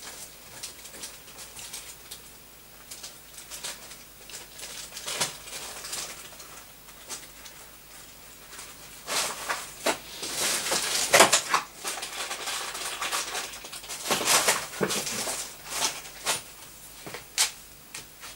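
Irregular ticks from a Geiger counter with a Soviet STS tube, mixed with rustling handling noise. The noise is denser and louder from about nine to twelve seconds in, and again around fifteen seconds.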